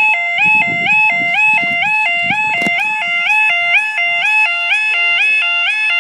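Level crossing warning alarm sounding: an electronic two-tone yodel alternating between a lower and a higher pitch about twice a second, steady and loud.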